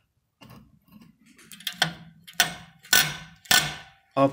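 Freshly cleaned and greased handbrake swivel lever on a van's rear brake, worked back and forth by hand and snapping back on its return spring: a few faint clicks, then four sharp metallic clicks about half a second apart. The mechanism now moves freely after being seized.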